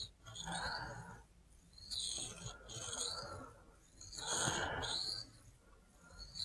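Cruwear steel knife blade scraped back and forth by hand across a sharpening stone: four gritty strokes of about a second each with short pauses between, faint. The strokes blend a freshly reworked heel section into the rest of the edge.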